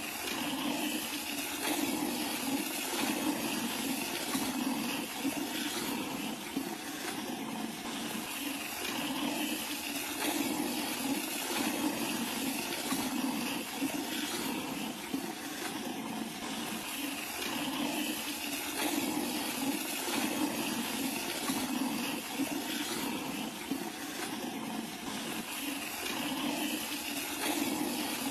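Hand milking: jets of milk squirting from a cow's teats into a plastic bucket, going on steadily.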